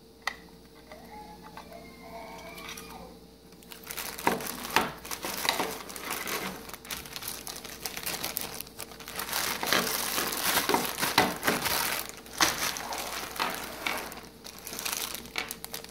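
Clear plastic packaging bags crinkling and rustling as they are handled and opened, starting about four seconds in, with many small crackles and clicks.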